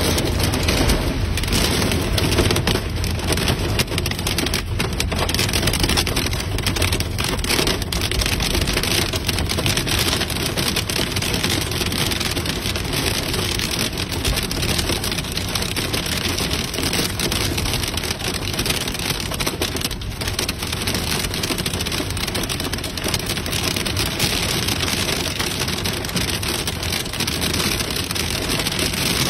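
Heavy, pounding rain drumming on a car's roof and windscreen, heard from inside the car: a dense, steady downpour with a patter of individual drops.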